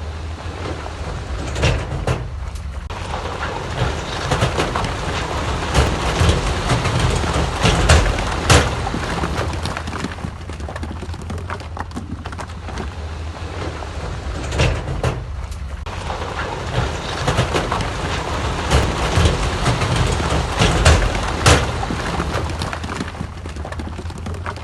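Diesel engine of heavy earthmoving machinery running steadily under load, with repeated clanks, knocks and rattles of rock and steel throughout.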